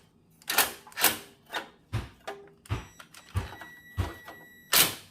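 An 8 mm wrench working the carburetor mounting nuts on a Tecumseh snowblower engine: a string of sharp metal clicks, about two a second and unevenly spaced.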